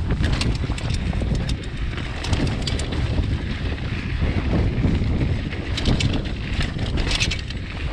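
Mountain bike chain slapping against the bare chainstay, an irregular clatter of sharp clicks heard in clusters over heavy wind rumble on the microphone; the chainstay protector is missing.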